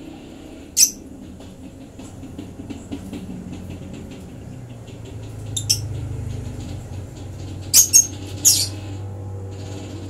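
Baby lovebird giving short, shrill begging squeaks while being hand-fed: one about a second in, two near the middle, and three close together near the end, over a low steady hum.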